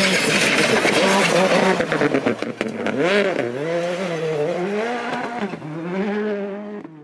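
Citroën C3 Rally2's turbocharged 1.6-litre four-cylinder engine at full throttle as the rally car approaches and passes by, with a cluster of sharp cracks about two and a half seconds in. After that the revs rise and fall repeatedly, and the sound fades away near the end.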